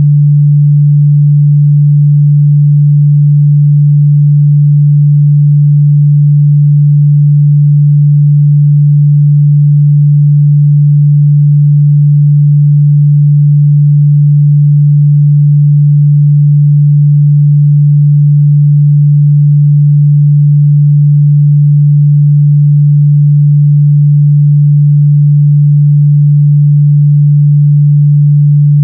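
Steady 146 Hz sine-wave test tone, a constant low hum with no change in pitch or loudness.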